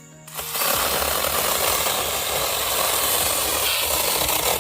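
Battery-powered mini chainsaw running and cutting through a branch. The noise starts abruptly about a quarter second in, holds steady, and cuts off right at the end.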